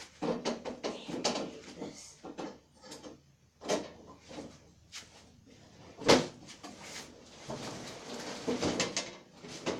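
Irregular knocks, clunks and scrapes of equipment being handled and shifted about, with the loudest sharp clunk about six seconds in.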